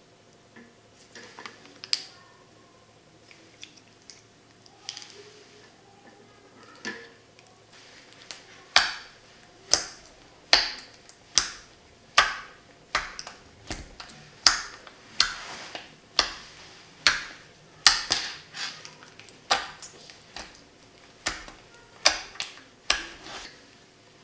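Clear dish soap slime being squeezed, stretched and pressed by hand, giving wet sticky clicks and pops. A few soft ones at first, then from about eight seconds in a steady run of sharp pops, about one and a half a second.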